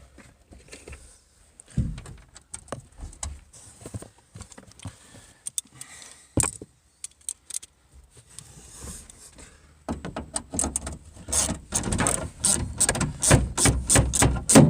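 Scattered clicks, knocks and metallic rattling from hand work on a van's rear door and its hardware. The clicking grows dense and louder for the last few seconds.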